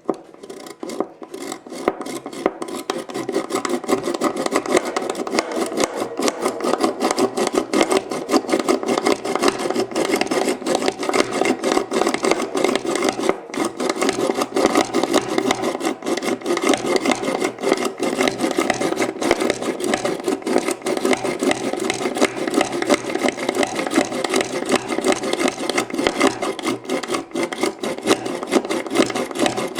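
Spring-loaded Yankee Handyman push drill boring a screw hole through a wooden clock case: a steady, rapid run of strokes as the bit is pumped up and down and cuts into the wood.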